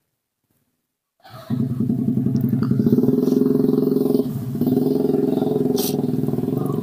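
Motorcycle engine running steadily close by, loud and even. It starts abruptly about a second in, after a moment of silence.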